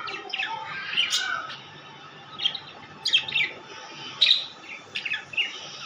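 Small Australian parrots chirping: short, sharp, high calls at irregular intervals, some coming in quick pairs.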